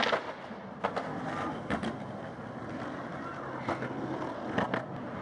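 Skateboard rolling away on concrete pavement, with a handful of sharp clacks spread out, two close together near the end.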